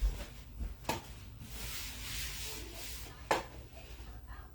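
Kitchen utensils and containers being handled: three sharp knocks, with a brief rushing noise of about a second and a half between the second and third.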